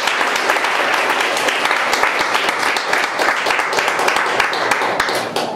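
Audience applauding: steady, dense clapping that starts to die away near the end.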